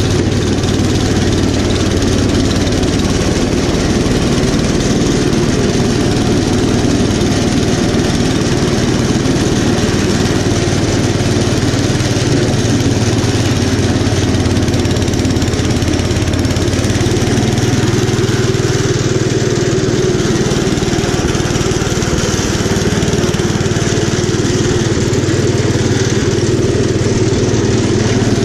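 The 10 hp Kohler K241 single-cylinder engine of a 1972 Gravely Commercial 10A walk-behind tractor, running steadily under load as it drives the snowblower attachment through snow.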